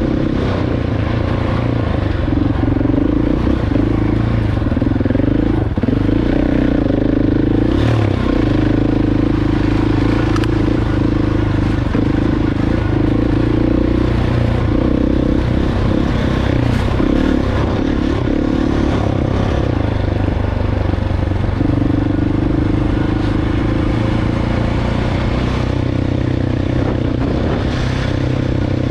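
KTM 690 Enduro R's single-cylinder engine running at a fairly steady cruise on a rough gravel track, with loose stones clattering under its new Michelin Tracker tyres.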